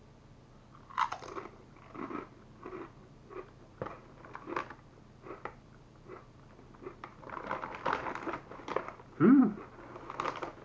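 A crisp tortilla chip being crunched and chewed, in irregular crunches one after another. Later the chip bag rustles, and near the end there is a short low hum from the mouth.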